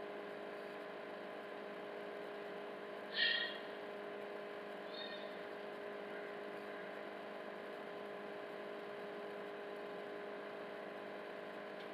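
Induction cooktop giving a low, steady hum. A nylon spatula scrapes briefly across the nonstick pan about three seconds in, and more faintly again about two seconds later.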